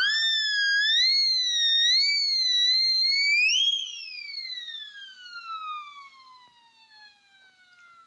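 Cartoon whistle noisemaker: a high whistled tone wobbles up and down for about three and a half seconds, then slides slowly downward in pitch over the next four seconds, growing fainter as it falls.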